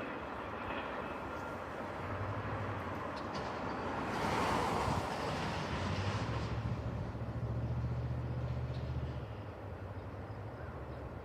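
Freight train running, a continuous rolling rush with a low steady engine hum that comes and goes. A louder rushing swell rises and fades about four to five seconds in.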